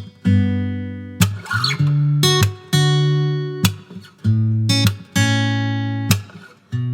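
Acoustic guitar music: strummed chords, each struck sharply and left to ring, changing every half second to a second.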